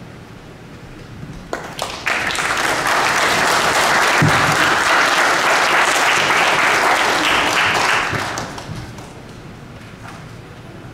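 Audience applauding. The clapping starts about two seconds in, holds steady and dies away over about a second near eight seconds in.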